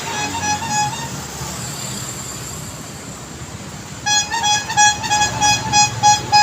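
Short horn toots on one high pitch, repeated several times a second over the low rumble of street traffic. The toots fade out about a second and a half in and return louder at about four seconds.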